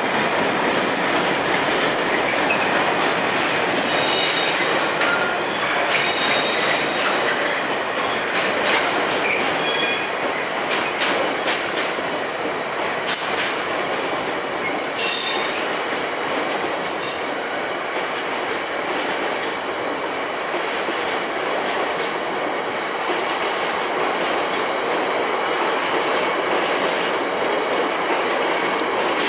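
A long rake of loaded stone hopper wagons behind a Class 59 diesel rolls steadily past. The wheels click over the rail joints, with brief high wheel squeals a few seconds in.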